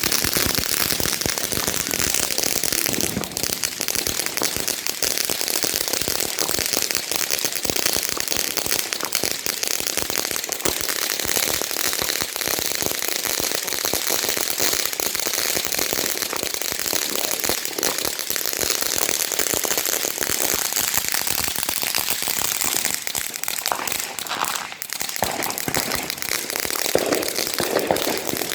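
Fireworks crackling without a break: a dense, rapid run of small pops that starts suddenly just before and keeps going steadily.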